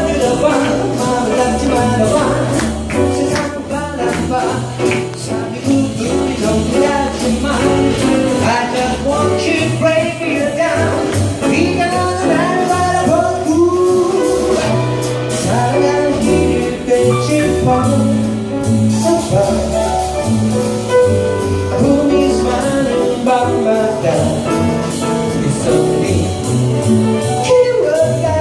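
Live jazz band playing: a male singer over grand piano, upright double bass and drum kit with cymbals, heard from among the audience.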